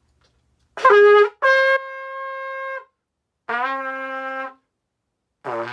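Stagg C trumpet played in single notes: a short, loud note, then a held C, then a held C an octave lower, then a wavering low pedal C beginning near the end. The horn sounds a little sharp, not yet tuned.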